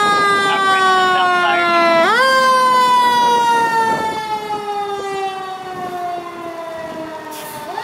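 Fire engine siren on a slow wail: the pitch falls slowly, rises quickly about two seconds in, falls slowly again and rises once more near the end. It grows fainter toward the end as the truck pulls away.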